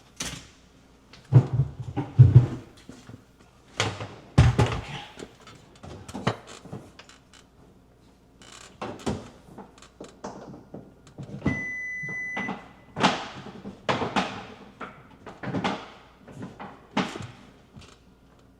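A series of knocks, thuds and clatters from handling hard parts, the heaviest thuds in the first few seconds. About twelve seconds in comes a single electronic beep lasting about a second.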